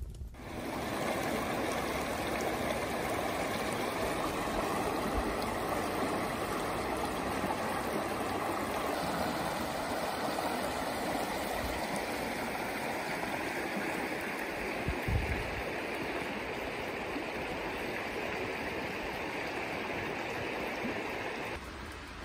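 Shallow river water running and babbling over pebbles and stones, a steady rushing sound. It becomes quieter near the end.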